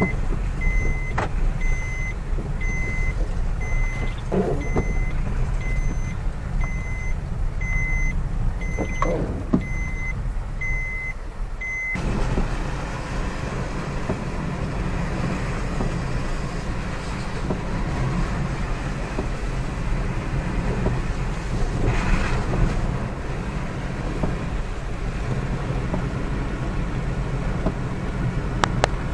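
Car running with a steady low rumble while its warning chime beeps about three times every two seconds, then stops suddenly about twelve seconds in. From then on a louder, even rushing noise of heavy rain on the moving car takes over.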